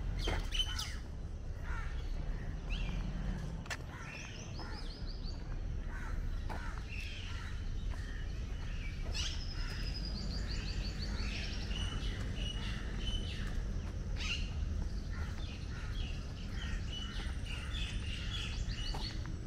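Several birds calling and chirping together, with quick trills of short repeated notes, over a steady low rumble of outdoor background noise.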